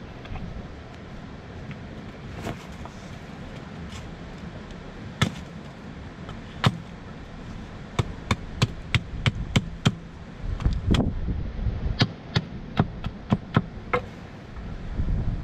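Hatchet chopping at the lower end of a green forked stick: a few sharp chops spaced apart at first, then a quick series of about three a second. A low rumble swells briefly partway through.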